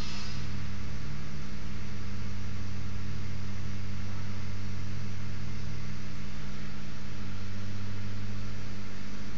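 A steady low electrical hum under an even hiss, unchanging throughout.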